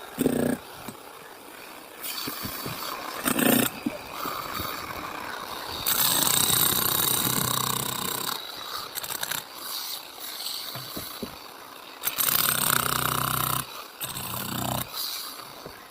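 Power saw cutting concrete, a harsh grinding noise that rises and falls with the load and dips briefly several times.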